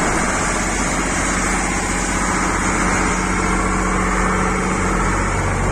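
Passenger boat's diesel engine running steadily with a loud, even sound.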